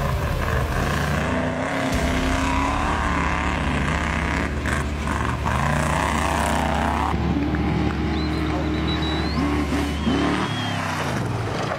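Off-road trophy truck engine revving hard as the truck races by on dirt, its pitch rising and falling repeatedly with the throttle.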